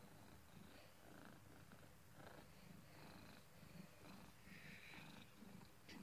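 Domestic cat making a soft, rhythmic rumble with each breath, which the owner calls snoring.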